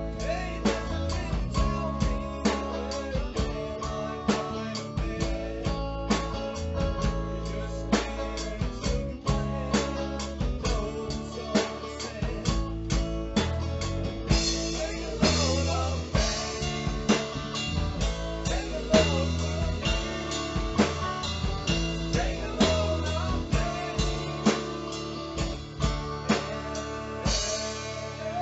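A band rehearsing a song: guitar over a drum kit keeping a steady beat, with a bass line moving underneath.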